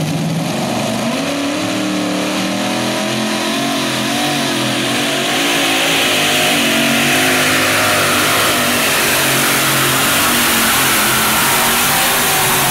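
Multi-engine modified pulling tractor, its supercharged open-header engines running at full throttle through a pull, with the engine note wavering up and down as the big rear tyres spin and bite. It grows louder about five seconds in.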